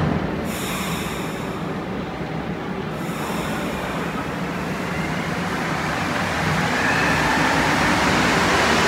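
Rubber-tyred Montreal Metro train approaching along the platform, its running noise growing steadily louder through the second half, with a higher whine coming in near the end. A high hiss sits over it in the first three seconds.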